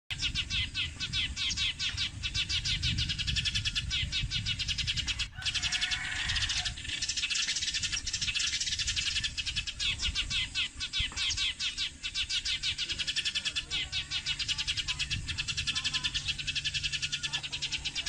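A flock of sparrows chirping together in a dense, fast chatter of short high calls, with a brief break about five seconds in.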